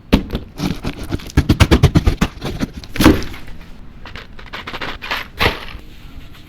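Quick run of sharp knocks and clatter from an office chair's parts being handled and fitted together, with a heavier knock about three seconds in and another near five and a half seconds.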